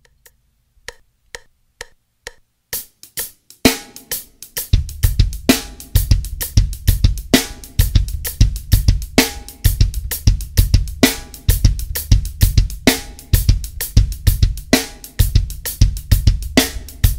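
Drum kit playing a half-time shuffle at 130 bpm: a triplet shuffle on the hi-hat, no ghost notes, a loud snare rim shot once a bar on beat three, and the bass drum on the first two notes of each triplet. It starts after a couple of seconds of faint ticks, the hi-hat coming in first and the full groove about a second later.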